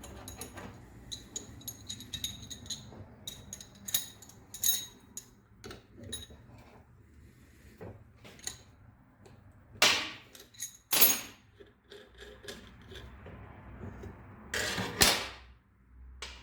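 Hand tools and metal parts of a router's armature assembly being worked: a run of small metallic clinks and knocks, then three louder rasping scrapes, about ten, eleven and fifteen seconds in, as a part is forced off the armature.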